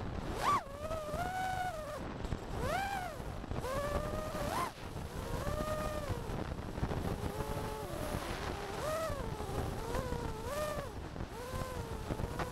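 FPV freestyle quadcopter on a TBS Source One V5 frame: its brushless motors and propellers whine, the pitch rising and falling again and again as the throttle is punched and eased. Wind rumbles on the onboard microphone underneath.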